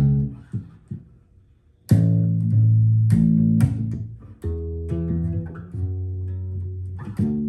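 Sterling SUB4 StingRay electric bass played through an Ampeg BA110 combo amp: a few short plucked notes, a gap of about a second, then a run of sustained single notes from about two seconds in.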